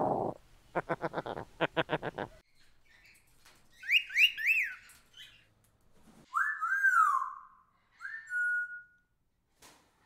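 Parrot calls: a short harsh call, then a quick run of about nine clucking notes, followed by clear whistles. There are three quick rising-and-falling whistles about four seconds in, two longer falling whistles a little over six seconds in, and a last whistle near the end that settles onto a held note.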